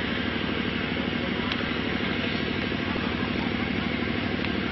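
Steady engine-like drone at an even level, with a couple of faint sharp clicks about a second and a half in and near the end.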